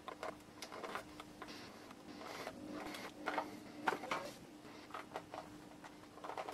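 Faint clicks and rustles of small electronic parts, wires and solder being handled on a workbench, over a low steady hum.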